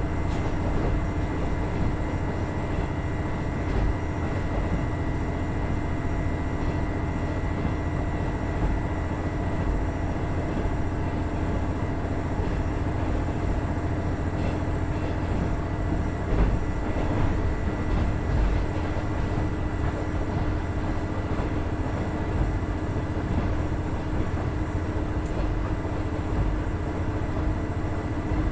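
KiHa 110 series diesel railcar running along the line: its Cummins DMF14HZA diesel engine holds steady revs under a continuous low rumble of wheels on rail, with a steady whine.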